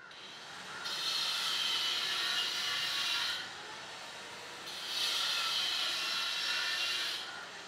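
Construction-site work noise: two long bursts of harsh hissing, each about two and a half seconds, with a short lull between them.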